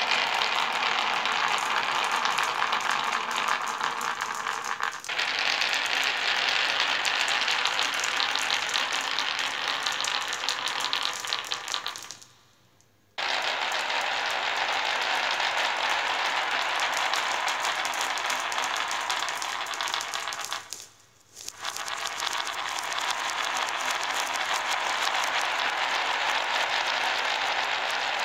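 Glass marbles rolling down a winding channel in a sloped wooden board, a dense continuous rattle of clicks as they knock against each other and the track. The rattle drops out twice, briefly: once near the middle and again about three-quarters of the way through.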